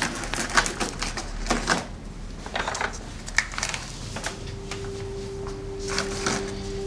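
Scattered light clicks and knocks of cups and a coffee machine being handled at a kitchen counter, with a steady low hum coming in about four seconds in.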